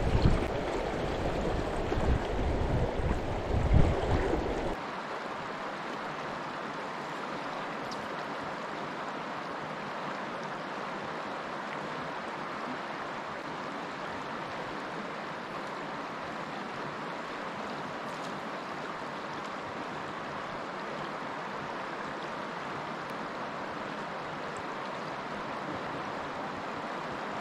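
Steady, even rush of a wide, fast-flowing river. For the first few seconds, uneven low rumbling from wind buffeting the microphone lies over it, then stops abruptly and only the river rush remains.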